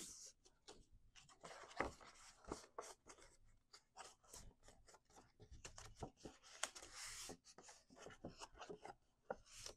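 Green cardstock being folded and creased by hand: quiet rustling and scraping of the card with scattered short ticks and taps.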